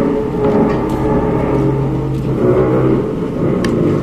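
Engines running with a low rumble and a humming tone that shifts in pitch; a sharp knock about three and a half seconds in.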